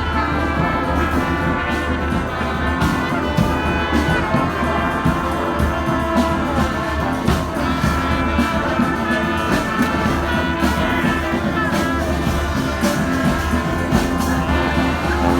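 Street brass band playing a loud tune live, several horns together with frequent sharp percussive hits.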